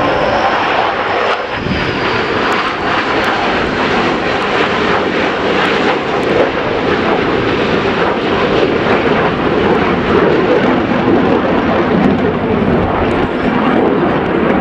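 Jet engine noise from four F-16 fighter jets flying over in formation: a loud, steady rushing sound.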